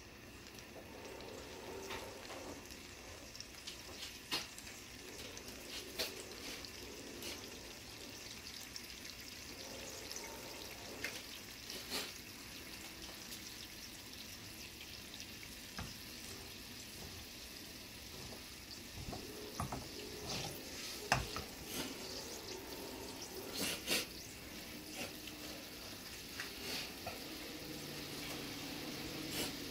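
Jjamppong broth heating in a frying pan toward the boil: a steady hiss that slowly grows louder, with scattered sharp pops and clicks of bubbles bursting.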